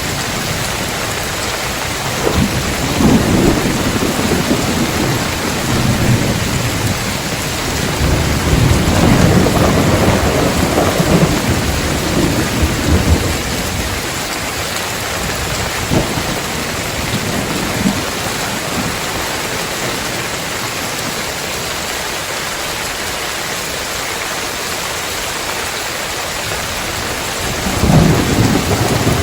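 Heavy rain falling steadily on a tiled roof, with rolling thunder: low rumbles swell a couple of seconds in and again from about eight to thirteen seconds, and a louder crack of thunder comes near the end.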